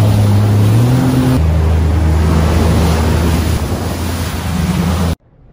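Jet ski engine running at speed, a steady drone that drops to a lower note about a second and a half in, with water rushing and wind buffeting the microphone. It cuts off suddenly near the end.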